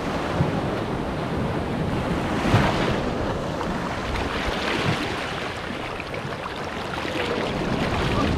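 Surf washing in over the sand at the water's edge, a steady noisy wash, with a few gusts of wind hitting the microphone.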